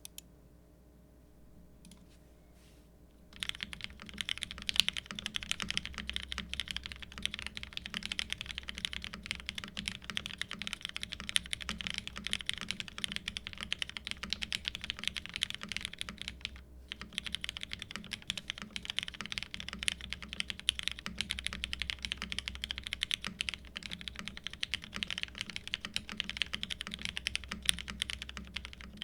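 Steady, fast typing on a Geonworks Frog TKL mechanical keyboard with lubed Cherry MX Black linear switches, a polycarbonate plate and GMK keycaps. The typing starts about three and a half seconds in and has one short break about two thirds of the way through.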